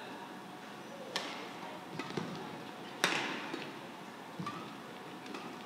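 Badminton rally: racket strings striking a shuttlecock, two sharp cracks about two seconds apart, with fainter taps in between.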